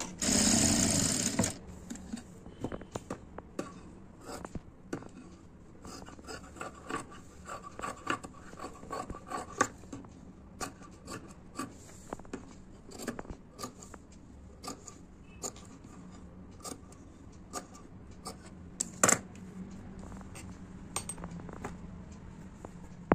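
A sewing machine runs for about a second and a half, then stops. After that come scattered small clicks, snips and rustles of cloth being handled and trimmed with scissors, with one sharper click near the end.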